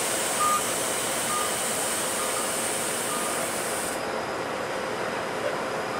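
A Flexity Outlook streetcar moving slowly through a turn, with steady traffic noise. A high hiss cuts off about four seconds in, and a short beep sounds four times, about once a second.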